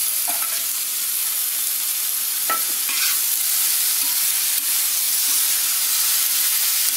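Raw mango pieces sizzling in hot oil in a kadai while a steel spatula stirs them, a steady frying hiss with a few clinks and scrapes of the spatula against the pan.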